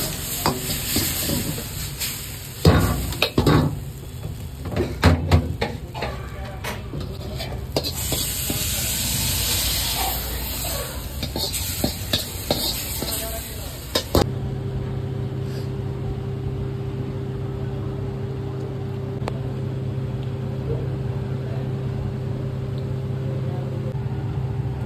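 Chicken 65 being stir-fried in a wok: a long metal ladle scrapes and clanks against the wok over sizzling oil, with a few loud knocks in the first five seconds and a steady sizzling hiss after that. About fourteen seconds in, the sound cuts to a steady low hum.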